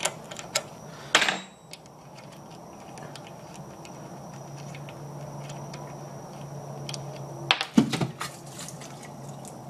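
Metal-on-metal clinks and a short rattle from a 10 mm wrench on the bowl drain bolt of a Greyhound 6.5 hp engine's carburetor. The loudest rattle comes about a second in and more clinks follow near the end, over a steady low hum.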